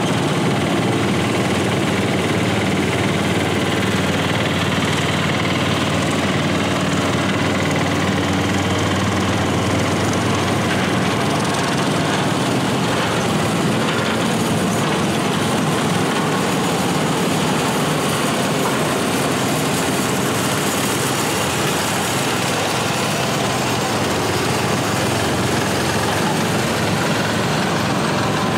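Several small garden tractor engines running at low speed as a line of garden tractors drives slowly past. The engine noise is steady and overlapping.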